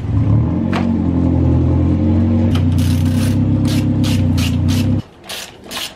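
A car engine running steadily, shut off abruptly about five seconds in. From about two and a half seconds in, a hand ratchet clicks in quick strokes, about three a second, continuing after the engine stops.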